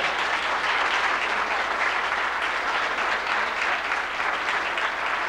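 Congregation applauding: many people clapping at once in a steady, dense patter.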